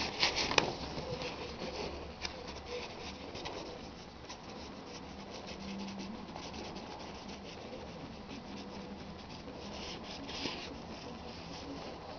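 Plastic shower curtain rustling and crinkling under a hand's pokes, loudest in the first half-second, with light scratching and ticking of a small pet moving beneath it; another burst of rustling about ten seconds in.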